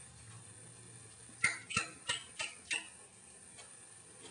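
Five short, sharp clicks or taps in quick succession, about three a second, starting about a second and a half in.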